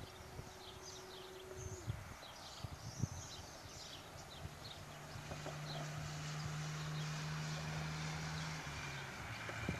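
Open-field ambience: small birds chirping repeatedly, with a steady low hum that sets in about a third of the way through and drops in pitch near the end.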